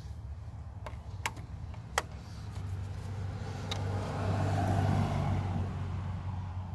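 A vehicle engine's low, steady hum that swells about four seconds in and then eases off, with a few sharp clicks about one and two seconds in.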